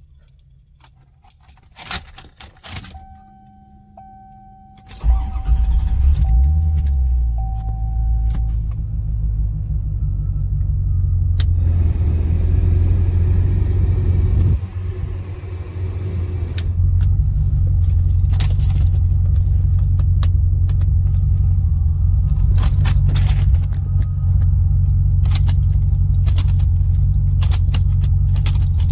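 Car engine starts about five seconds in, with keys rattling and a repeating dashboard warning chime, then runs steadily. This is a car the customer says keeps running even after it is switched off.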